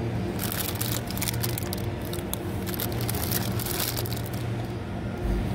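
Plastic produce bags of snap peas crinkling as a hand sorts through them, in irregular crackles for about four seconds, over a steady low hum.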